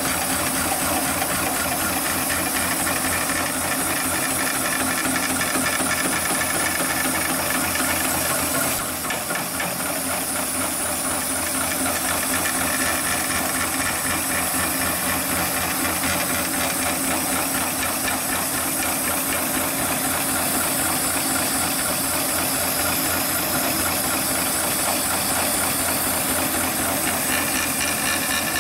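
Hightex heavy-duty computer-controlled pattern tacking machine sewing steadily through layered webbing, its needle stitching at a fast even rate under a steady hiss of cold air from the needle-cooling nozzle.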